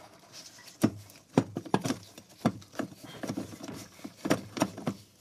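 A run of about a dozen irregular knocks: a flathead screwdriver struck with a hammer to tap the fuel pump's metal lock ring loose around the top of the fuel tank.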